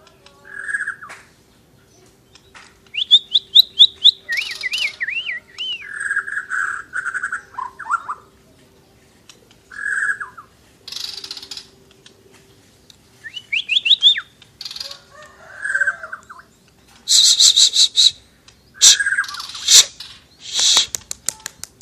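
White-rumped shama (murai borneo) singing in full song: a varied run of clear whistles, quick rising note series and harsh scratchy phrases, separated by short pauses.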